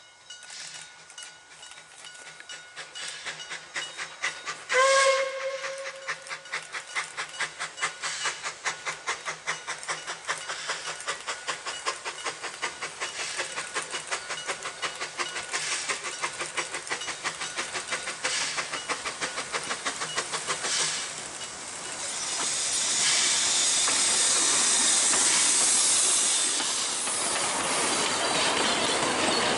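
Puffing Billy NA class narrow-gauge steam locomotive pulling away with a train, its exhaust beats quickening as it gathers speed, and one short whistle blast about five seconds in. From about two-thirds of the way through, a loud steady hiss of steam as the locomotive comes past, then the wooden carriages rolling by on the rails.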